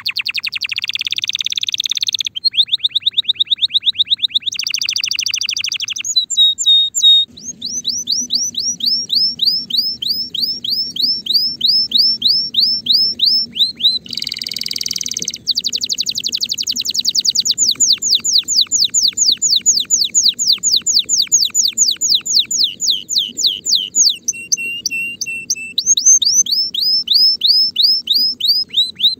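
Male Timbrado canary in breeding condition singing a long song of rapid trills: runs of quick, repeated downward-sweeping notes that change to a new phrase every few seconds, with a short buzzy phrase about halfway through.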